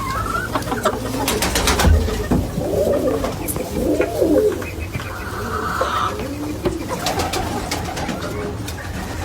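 Silkie chicken making low, wavering calls, loudest about three to four and a half seconds in.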